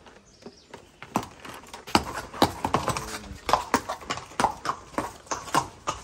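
Horse's shod hooves clopping on stone pavers, a string of irregular sharp knocks starting about a second in as the horse shifts and steps off under a rider.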